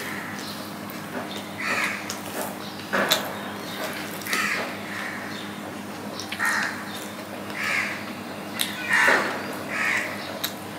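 Crows cawing repeatedly, one short harsh caw every second or two, over a few sharp clicks and smacks of rice being eaten by hand.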